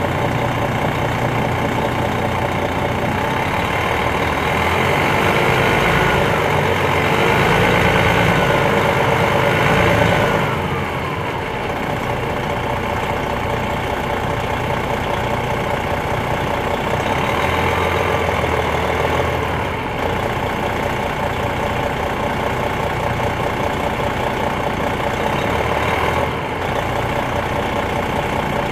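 2001 MCI D4000 coach's Detroit Diesel Series 60 inline-six turbodiesel, heard from inside the bus. The engine pulls with rising pitch and grows louder for several seconds, then drops away sharply about ten seconds in. It pulls up again more briefly later on.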